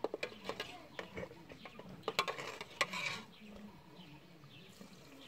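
A quick run of clicks and knocks with some scraping, from objects being handled by hand, over the first three seconds or so, then quiet background.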